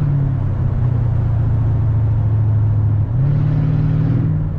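Mercedes E55 AMG's 5.4-litre V8 running smoothly with no misfire, cured by a replacement coil pack. The engine note holds steady, then jumps up in pitch after a brief dip in level about three seconds in.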